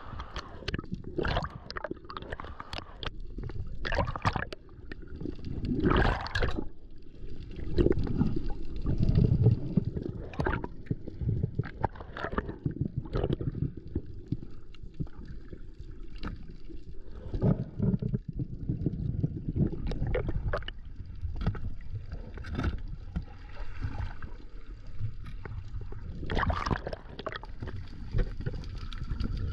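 Seawater rushing and gurgling around an action camera held underwater while diving, a low rumble that swells and fades, with many sharp clicks and knocks scattered through it.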